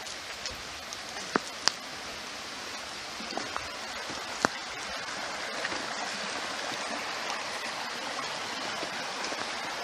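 Shallow rocky creek flowing steadily over stones. A few sharp clicks stand out above it, two close together about a second and a half in and another about four and a half seconds in.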